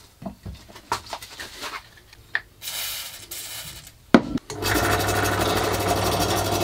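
Bench drill press starting a little over four seconds in and then running steadily while a countersink bit cuts into a steel plate. Before it come light handling clicks, a brief hiss and a sharp knock.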